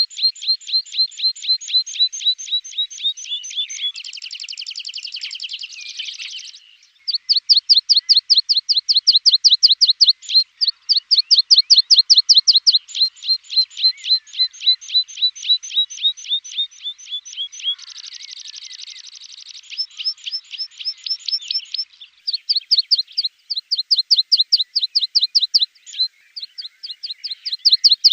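Branjangan (Javan bush lark) song: rapid runs of sharp, repeated high chirps, several a second, broken twice by a short buzzy trill, about four seconds in and again near the three-quarter mark.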